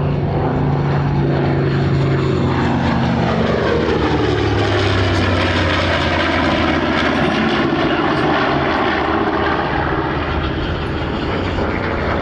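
Piston-engine propeller warbird passing by, its engine running loud and steady, the pitch dropping as it goes past about four seconds in.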